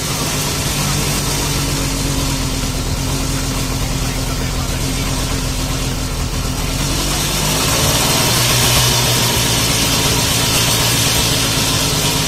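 Izh-49 motorcycle's single-cylinder two-stroke engine running steadily at a fast idle, then picking up to a slightly faster, louder run about seven seconds in.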